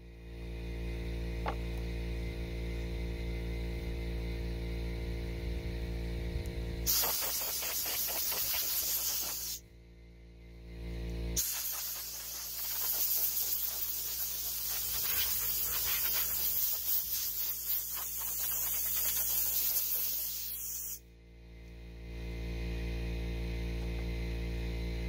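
Compressed-air blow gun blasting dust off 3D-printed armour pieces before painting. It comes in two long bursts of hiss, a short one a few seconds past a third of the way in and a longer one through the middle. A steady low hum runs underneath.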